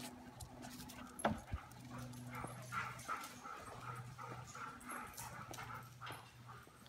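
Dogs whining, a run of short high-pitched cries about three a second, with claws clicking on a concrete floor. A single sharp knock comes about a second in.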